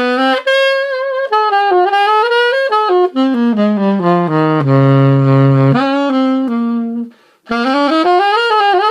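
Martin Typewriter alto saxophone, gold-plated with small pad resonators, played solo with a mellow tone. A phrase steps down to a low note held about a second, then after a short break a new phrase starts with wavering, bending pitch.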